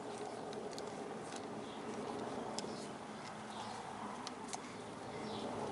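Quiet outdoor background with a few faint, light ticks as a screwdriver turns a handguard bar-end bolt out of a motorcycle handlebar.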